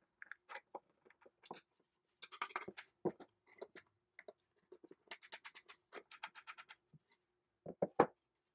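Pine boards and nails being handled on a wooden workbench: scattered scrapes and light clicks, a quick run of clicks in the middle, then a few sharp wooden knocks near the end as a board is set down, with a faint steady hum underneath.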